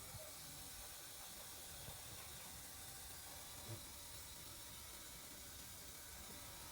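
Steady hiss over an uneven low rumble, with a few soft knocks, from a BMW 318i petrol engine running with a misfire.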